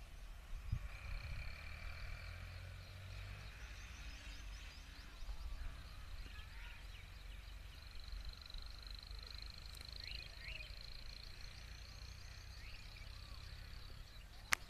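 Outdoor rural ambience: a steady high-pitched animal chorus with a few short chirps about ten seconds in, over a low rumble. A sharp click near the end.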